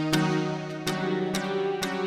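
Kurzweil K2vx synthesizer preset being played: sustained pitched notes, freshly struck four times, about once every half second, with a sharp attack each time.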